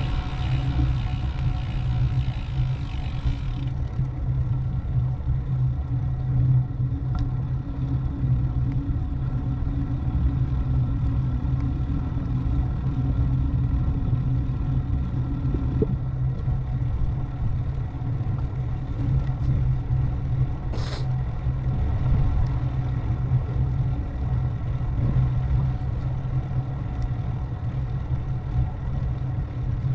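A vehicle engine running at a steady cruise with constant road and wind noise, a low hum with a steady pitch. The hiss eases a few seconds in, and a single short click comes about two-thirds of the way through.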